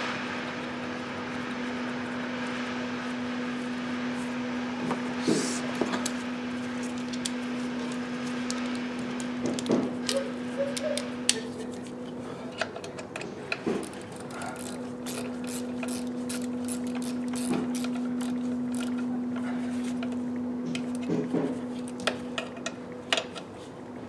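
Hand tools working on engine-bay fittings: scattered knocks and clacks, then many quick, irregular clicks in the second half, as a ratchet turns fasteners. A steady low hum runs underneath.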